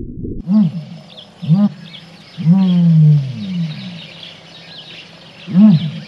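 An animal calling: four low calls that rise and fall in pitch, the third long and sliding downward, with faint short high chirps behind them.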